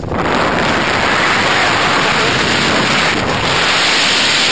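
Loud, steady rush of wind over a helmet camera's microphone as a skydiver flies under an open parachute canopy, setting in suddenly.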